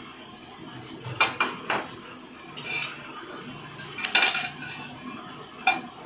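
Metal clinks and clanks from a clamp being worked onto a flat steel bar. There are three quick strikes about a second in, a softer one, the loudest about four seconds in, and one more near the end.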